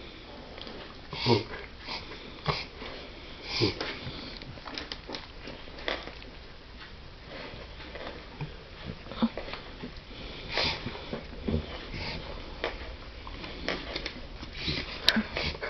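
A dog reverse sneezing: repeated short, sharp, noisy inhalations through the nose, coming in irregular bursts.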